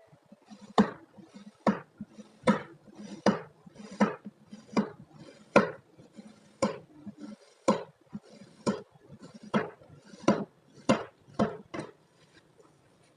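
A knife cutting through kinetic sand in a steady series of about fifteen sharp clicks, a little under one a second, as the blade strikes the surface beneath with each cut.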